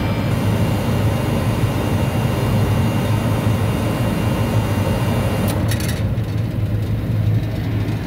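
Walk-in freezer condensing unit running with its condenser blocked, a steady low hum under a hiss as the head pressure climbs. About five and a half seconds in there is a brief clatter, after which the hiss thins out: the faulty high-pressure control cutting out early, at about 380 PSI instead of 410.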